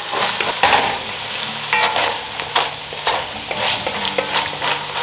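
Food frying in a pan while a utensil stirs and scrapes it, with irregular short scrapes and clinks over a steady sizzle.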